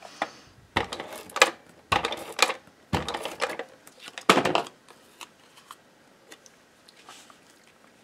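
Adhesive tape runner drawn across cardstock in about five short strokes in the first half, followed by a few faint clicks of paper being handled.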